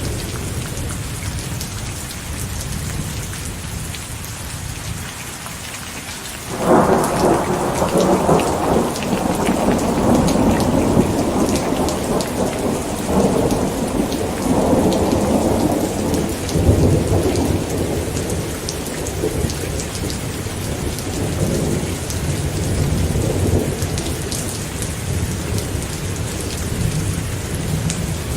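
Steady heavy rain with a low rumble of thunder. About six seconds in a thunderclap breaks sharply, then rolls on in waves and slowly fades while the rain continues.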